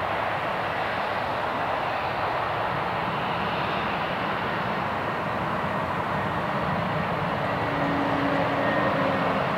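Jet airliner's engines, a steady rushing noise that grows slightly louder near the end.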